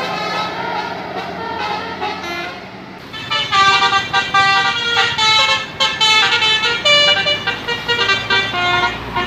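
Bus telolet horn, a Basuri-type multi-tone musical horn, playing a quick tune of short notes that step up and down in pitch, starting about three seconds in. Before that, road vehicle noise.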